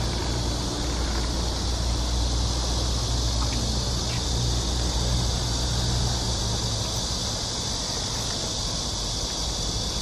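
Cicadas droning in a steady, unbroken high chorus, with a low rumble underneath.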